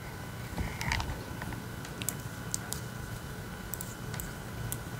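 Faint, scattered clicks and taps of metal knitting needles as stitches are worked and the needle tips knock together, over a steady faint hum.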